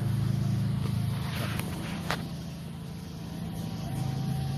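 Steady low hum of an idling engine, with a plastic coolant reservoir being pulled loose and lifted out by hand; a single sharp click about two seconds in.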